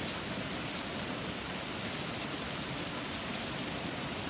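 Melting frozen waterfall: a steady rush of water and small ice pouring down the chute, even and unbroken, with no large chunk falling.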